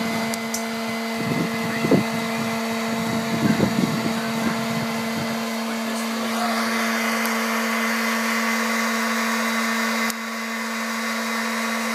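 Hot-air popcorn popper roasting coffee beans: its fan motor runs with a steady hum over a rush of blown air, and the sound drops a little in level about ten seconds in.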